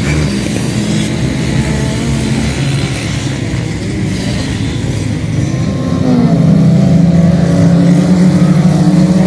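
Racing engines on a dirt track: dirt-bike and scooter engines running and revving. About six seconds in, a louder car engine revs up in pitch and then holds a steady drone as autocross cars race past.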